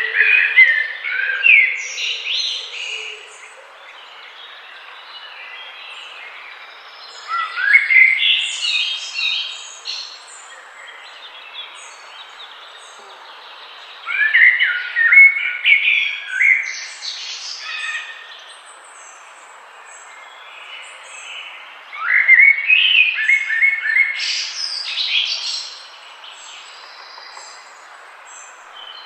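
A songbird singing loud, varied song phrases of a few seconds each, repeated about every seven seconds, over a faint steady hiss.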